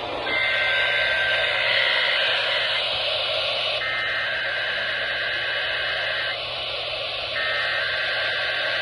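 Emergency Alert System SAME header data: three bursts of the harsh two-tone digital warble, each about two and a half seconds long with a second's pause between them, heard over a radio with steady static hiss. This is the header that opens a Required Weekly Test.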